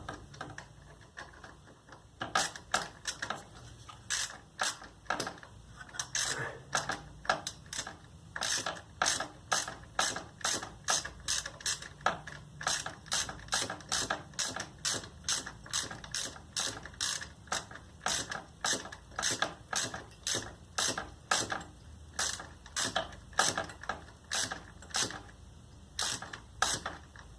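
Hand socket ratchet clicking in short repeated runs, about two clicks a second, as it is swung back and forth to run in Allen-head bolts with a hex bit.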